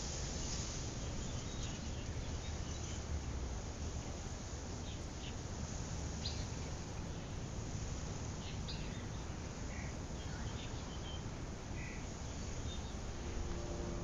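Steady outdoor ambient noise with a low rumble, with short, high bird-like chirps scattered through it.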